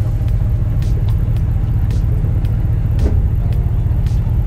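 Tow vehicle's engine idling with a steady low rumble, with a few faint ticks scattered over it.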